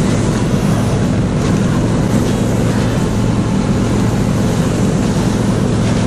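Small single-cylinder engine of a motorized tow sled (motor dog) running steadily under load as it travels over snow, a constant low drone with rushing noise over it.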